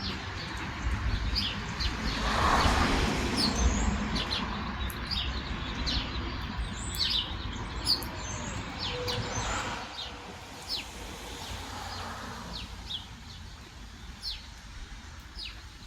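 Small birds chirping, many short high chirps scattered throughout, over a rushing of wind that swells about two seconds in and again near ten seconds.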